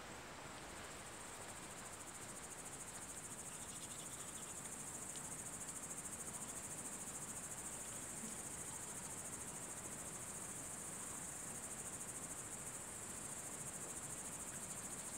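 Crickets chirring in the evening: a steady, high-pitched, fast-pulsing trill.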